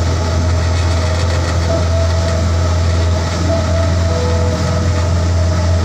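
Motorboat engine running steadily under way, a loud, even low drone.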